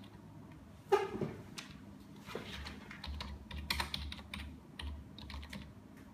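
Typing on a computer keyboard: a quick run of key clicks starting a little over two seconds in, after a single loud thump about a second in.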